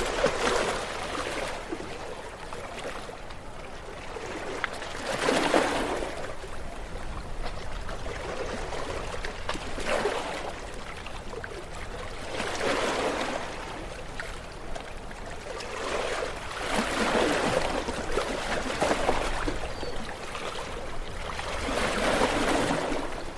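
Sea waves washing onto the shore, a rush of water that swells and falls away every few seconds.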